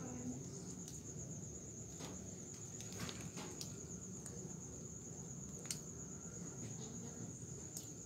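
Night insects trilling: one continuous, even, high-pitched trill, with a few faint sharp clicks scattered through it.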